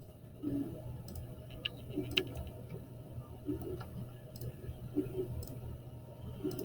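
Computer mouse clicking irregularly, a dozen or so short sharp clicks with soft thuds, over a steady low hum.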